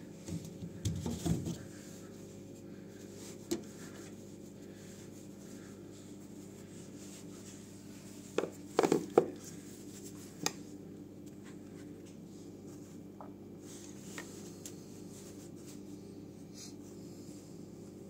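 Short clusters of plastic clicks, knocks and rubbing as the washing machine's drain-pump filter cap is handled and turned: one cluster about a second in, another a little past the middle. A steady low hum sits under them.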